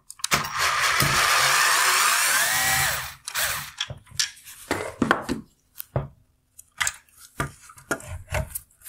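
Electric screwdriver running for about three seconds as it backs out a T20 Torx screw, its pitch rising near the end of the run. It is followed by a string of short clicks and knocks as the loosened headlight parts are handled.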